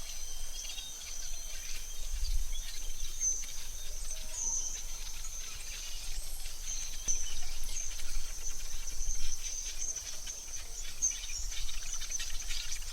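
Forest ambience: a steady, high insect trill with scattered bird chirps over it and a low rumble underneath.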